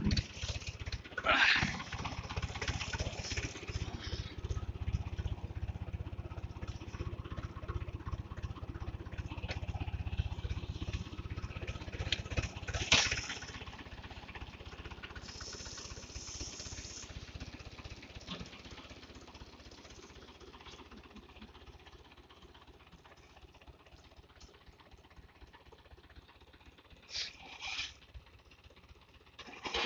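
575 DI tractor's direct-injection diesel engine running at a low, steady speed, a low throb that grows fainter through the second half. A few short, sharper sounds stand out over it, the loudest about a second and a half in and about thirteen seconds in.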